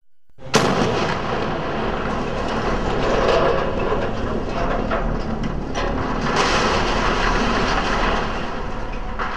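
Demolition blast: a sharp bang about half a second in, then a long rumble with crackling as a steel mine shaft headframe topples. The noise swells again about six seconds in as the tower comes down.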